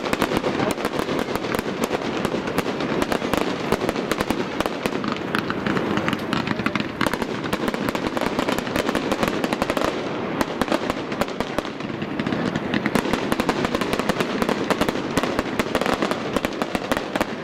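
Fireworks display: aerial shells bursting in a dense, continuous barrage of bangs and crackle, many reports a second with no pause.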